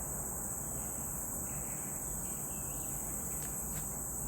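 A steady, continuous chorus of insects, a high-pitched drone that holds without a break, with a couple of faint ticks near the end.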